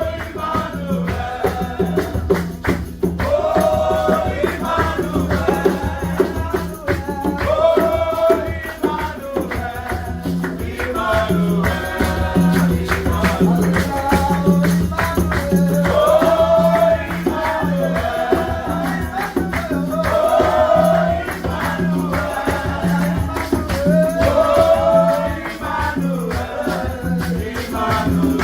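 Gospel worship music: voices singing long phrases about every four seconds over a held low note, with rattling hand percussion throughout.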